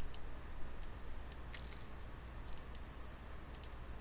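Computer mouse clicking several times, some clicks in quick pairs, over a steady low electrical hum.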